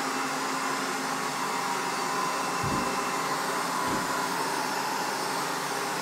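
Ecovacs Deebot 600 robot vacuum running in edge-cleaning mode, a steady whir from its suction fan and brushes, with two dull low thumps near the middle.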